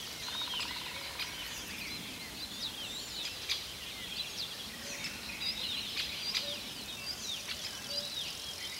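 Small birds chirping and twittering in quick, short calls, many overlapping, over a faint steady background hiss.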